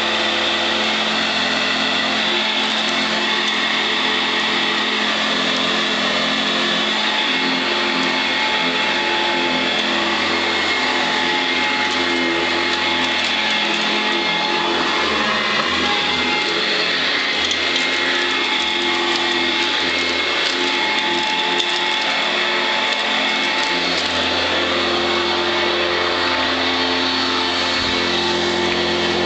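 Blue Eureka ESP direct-air commercial upright vacuum running steadily, its motor giving a constant whine, with scattered faint ticks partway through as it picks up bird seed.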